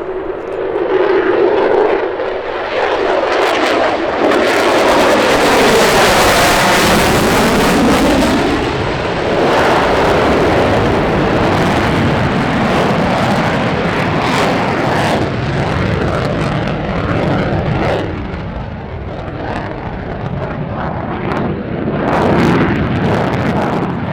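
Airplane engine noise as an aircraft passes by, loudest about five to ten seconds in, with a sweeping, phasing change in the sound as it goes past.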